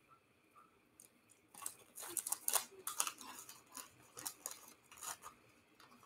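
Plastic snack bag crinkling and rustling in quick irregular crackles as it is handled and opened, starting about a second and a half in.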